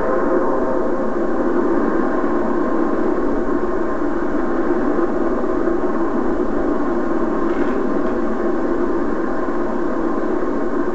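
Droning instrumental music of many sustained, overlapping tones, played through a television's speaker.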